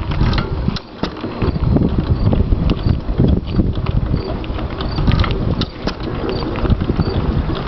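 IHC Famous 2 hp vertical single-cylinder hit-and-miss engine running, a steady low chugging with many sharp clicks and clatter from its moving parts. The level dips briefly about a second in.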